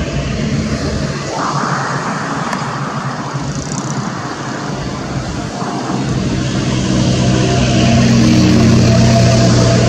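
Diesel-electric locomotive's engine running steadily as it approaches, hauling a passenger train, its low hum growing louder in the second half. A stretch of hiss joins it about a second in and fades about three seconds later.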